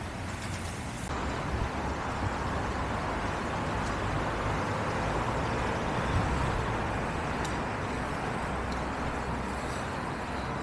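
Steady outdoor street ambience: distant road traffic as a low rumble and even hiss, stepping up slightly about a second in, with a few faint ticks near the end.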